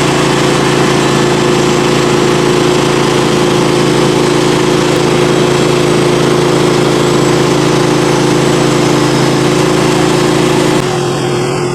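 Norwood HD38 portable bandsaw mill's engine running steadily. Near the end some of its note drops away and it gets a little quieter.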